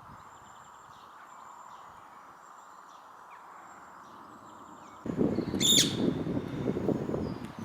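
Faint bird calls over a steady background hiss. About five seconds in, a louder rustling noise starts, and a single shrill wild parrot squawk with a falling tail rings out over it.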